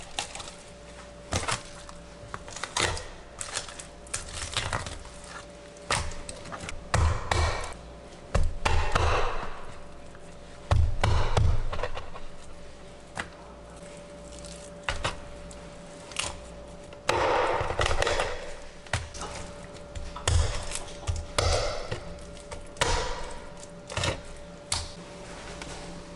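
Kitchen knife chopping through a tautog's head and bones on a wooden cutting board: repeated knocks of the blade against the board, with several longer crunching stretches as it cuts through bone.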